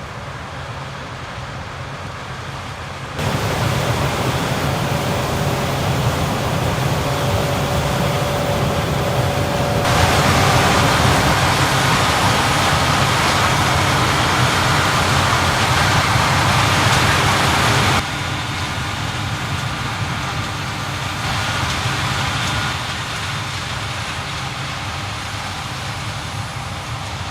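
Heavy harvest machinery running steadily: a combine harvester and tractors working a corn harvest, with engine hum under a dense mechanical noise. The level steps up abruptly about 3 and 10 seconds in and drops about 18 seconds in.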